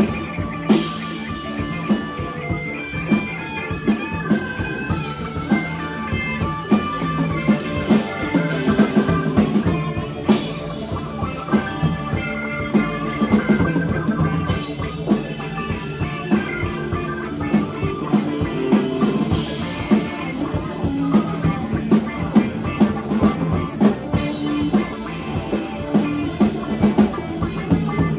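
Live rock band playing: a guitar's melodic lines over a steady drum-kit beat.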